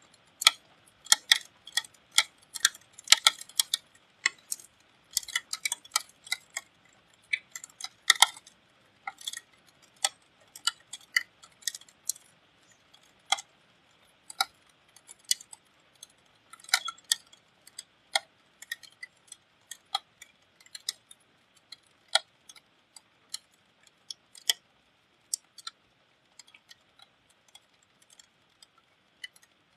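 Raindrops dripping onto a hard surface close to the microphone: irregular sharp ticks and taps, sometimes several in quick succession. They come thickest in the first half and thin out toward the end, over a faint steady rain hiss.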